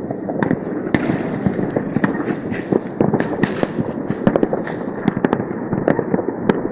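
New Year's fireworks and firecrackers going off in many places at once: a continuous rumbling crackle dotted with frequent sharp bangs.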